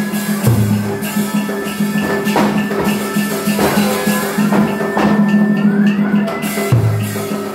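Tuồng orchestra accompaniment: drum and other percussion strikes over held instrumental tones, with one tone sliding upward near the end.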